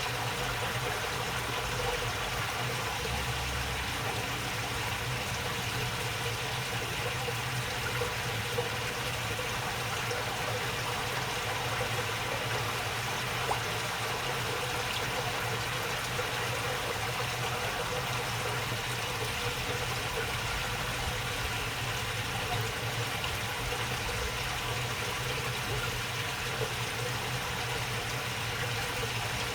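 Water babbling steadily along a small waterway channel, an even rushing trickle that does not change.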